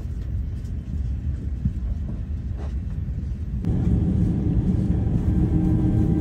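Airliner cabin noise: a steady low rumble that grows louder and fuller about three and a half seconds in.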